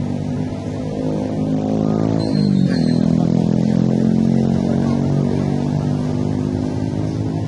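Steady engine hum, its pitch dropping smoothly about two and a half seconds in.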